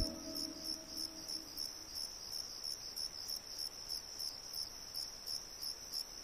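Crickets chirping in a steady, rapid, high-pitched pulse. Background music fades out at the very start.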